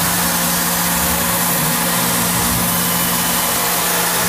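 CNC mill spindle running steadily while a small end mill takes a very light finishing pass around an aluminium pocket, barely cutting, with a steady hum under a loud even hiss.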